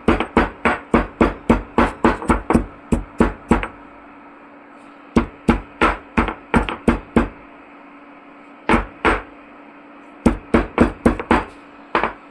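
Stone pestle pounding black cardamom pods and cinnamon in a stone mortar: sharp stone-on-stone knocks about four a second, in several runs broken by short pauses.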